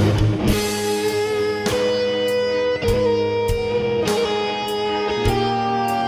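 Background music led by electric guitar: held notes that slide in pitch between them, over a steady beat.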